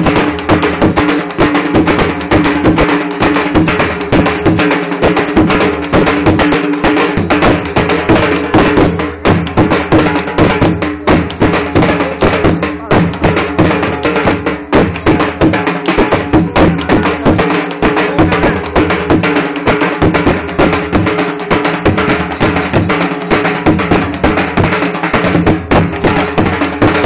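Dhol drums beaten in a fast, driving dhamaal rhythm, with a steady held tone running underneath.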